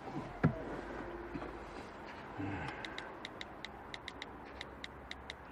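A smartphone's on-screen keyboard clicking as a text message is typed: quick light taps, about four to five a second, starting about three seconds in. A single soft knock comes shortly after the start.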